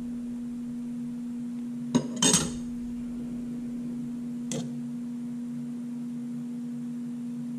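Light metal clinks from the steel and friction clutch plates of a DCT470 dual-clutch transmission's clutch basket being handled: a click about two seconds in, a short clatter right after, and a lighter click a couple of seconds later. A steady electrical hum runs underneath.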